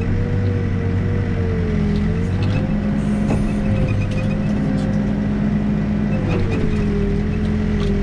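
Backhoe's diesel engine and hydraulics running steadily under working load, the pitch dipping and rising slightly as the machine digs, with a few faint clinks.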